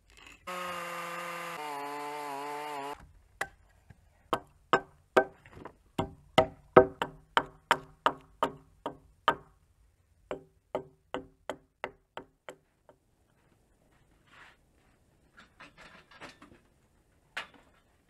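A hammer strikes a steel chisel set into a wooden block about twenty times, at roughly two blows a second, and each blow rings with a metallic tone. The blows are preceded by a steady hum of wavering pitch lasting a couple of seconds that cuts off abruptly, and they are followed by faint scraping and a single knock.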